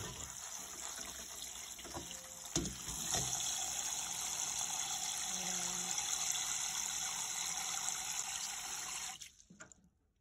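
Tap water running steadily onto a pile of cherries in a perforated metal colander, a continuous splashing hiss with a few faint knocks. It stops abruptly near the end.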